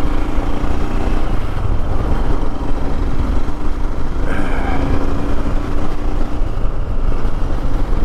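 Royal Enfield Himalayan's single-cylinder engine running steadily as the motorcycle is ridden along, with a heavy low rumble.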